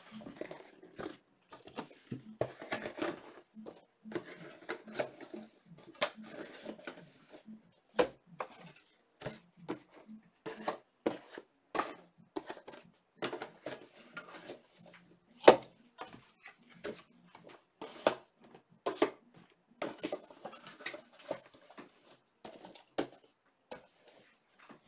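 Trading cards and their packaging being handled on a table: irregular sharp taps and clicks with light rustling between them. The loudest tap comes a little past the middle.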